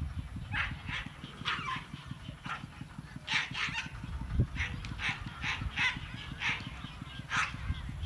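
Dogs barking and yipping in play, about a dozen short barks at irregular intervals.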